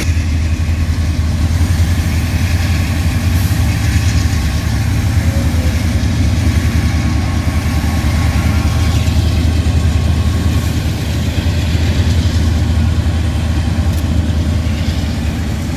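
Diesel-electric freight locomotives running at idle or low throttle: a steady, loud low engine rumble that holds even throughout.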